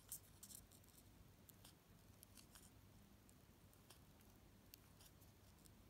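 Faint, scattered soft ticks and rustles of a needle and thread being worked through satin ribbon in small running stitches.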